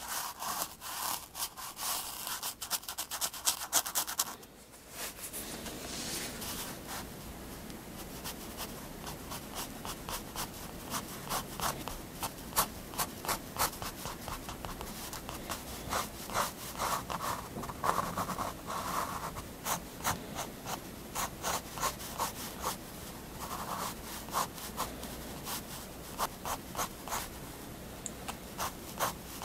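Staedtler triplus 0.3 mm fineliner drawing on paper: many short, quick scratches and ticks of the nib, with a few longer drawn strokes. A denser run of scratching fills the first four seconds and breaks off abruptly.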